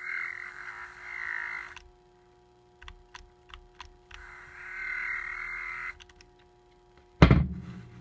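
A Dremel rotary tool with a commutator sanding attachment wet-sands a slot-car pancake armature's commutator in two rasping bursts of about two seconds each, the second about four seconds in, with a few light clicks between them. About seven seconds in, the tool is set down on the bench with a loud thump.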